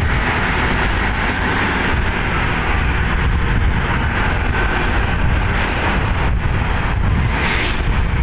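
Loud, steady rumble of a tour bus's engine and road noise, with no horn tune sounding.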